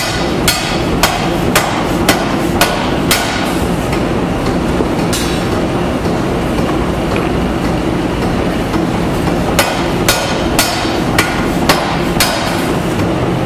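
Massey power hammer striking a white-hot steel bar in two runs of about six heavy blows, two a second, with a pause of several seconds between them. The hammer's machinery hums steadily throughout.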